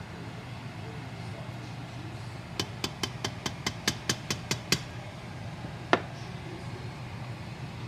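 A plastic cooking spoon knocking against the rim of a stainless steel pot. There is a quick run of about ten light clicks, about five a second, then one louder knock with a short ring, over a steady low hum.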